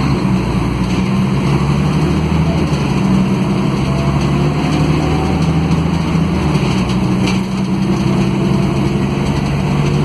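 Articulated Mercedes-Benz O500 UA bus under way, heard from inside the passenger cabin. Its Mercedes-Benz OM457LA six-cylinder diesel runs through a ZF Ecomat automatic gearbox. The engine note shifts about six and a half seconds in and climbs near the end.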